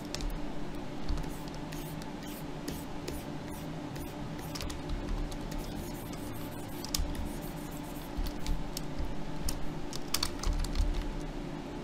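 Irregular clicking of computer keys during desk work at a computer, with a few soft low thumps and a steady low hum underneath.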